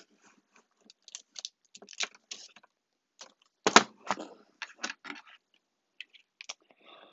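Small objects and packaging being handled and put down: an irregular run of clicks, knocks and rustles, the loudest knock about four seconds in.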